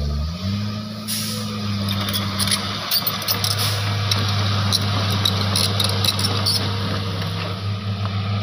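Hitachi Zaxis 225 excavator's diesel engine working under load, revving up just after the start and holding a steady, higher pitch as it lifts a heavy log in its grapple, with scattered sharp clicks and knocks during the lift. The machine is straining, barely strong enough for the log.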